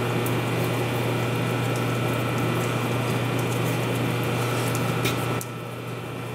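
Lathe coolant pump running with a steady electric hum while a flood of coolant pours and splashes into the chip pan. The splashing drops off sharply about five seconds in, and the hum carries on.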